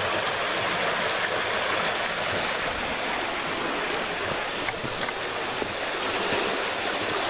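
River water rushing over rocks in a small rapid, a steady, even hiss of flowing water.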